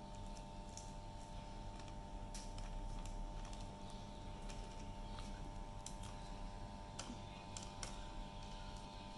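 Clear zip-lock plastic bag crinkling in scattered small crackles and clicks as a dough ball is placed inside it and pressed flat by hand, over a steady hum.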